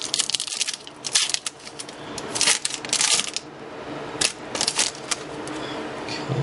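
Foil trading-card pack wrappers crinkling and cards rustling as they are handled, in a run of short, sharp bursts.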